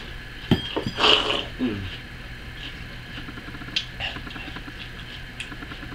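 A mouthful of French Toast Crunch cereal being eaten face-first from the bowl: a few loud, sudden noisy sounds in the first two seconds, then quieter small crunching clicks of chewing.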